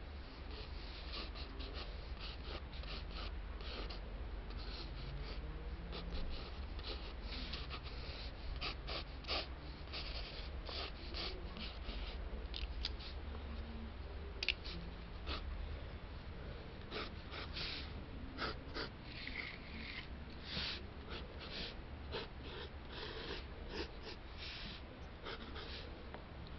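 Pencil lead scratching across sketchbook paper in many short, quick, irregular strokes, over a steady low hum.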